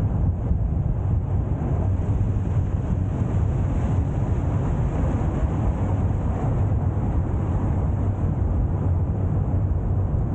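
Car driving at a steady speed: a continuous low rumble of engine and road noise.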